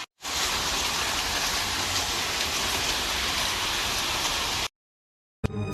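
Heavy rain pouring down as a steady, dense hiss, which cuts off abruptly near the end.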